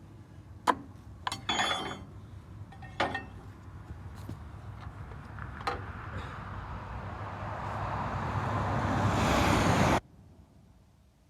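A few sharp metallic knocks and clinks as stiff steel wire rope is handled and fed through a winch fairlead. Then a rushing noise of wind on the microphone grows steadily louder and cuts off suddenly near the end.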